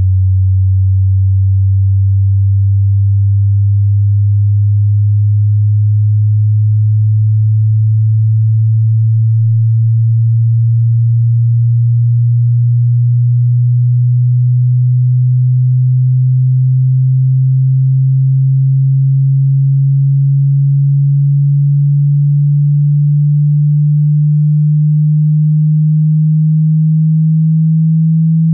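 Hearing-test sine tone: a single low, pure, steady tone that rises slowly and evenly in pitch.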